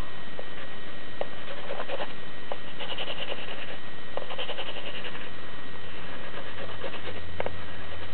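Faint scratchy strokes of coloring on paper and a few light clicks over a steady hiss; a low hum comes in near the end.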